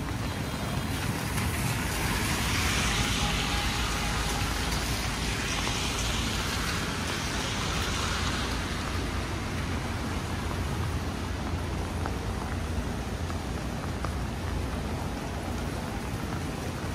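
Heavy rain falling steadily on a city street over a low traffic rumble. A passing vehicle's tyres hiss on the wet road, swelling about two seconds in and fading out by about nine seconds.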